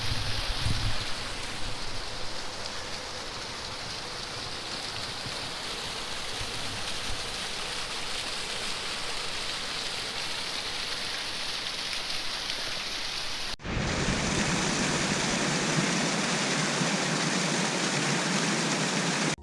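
Steady rushing of creek water falling and running under the ice of a mostly frozen waterfall. About two-thirds of the way through it breaks off abruptly and resumes as a louder, fuller rush.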